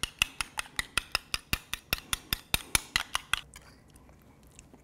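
Spoon clinking rapidly against the side of a stoneware bowl while stirring thick cocktail sauce, about six clicks a second, stopping about three and a half seconds in.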